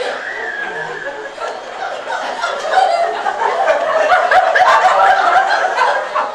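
Audience laughing and chuckling, the laughter swelling louder about halfway through.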